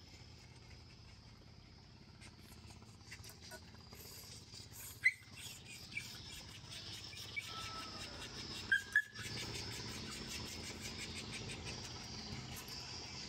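Insects droning steadily, louder in the second half, with a few short bird chirps; the loudest is a quick pair about nine seconds in.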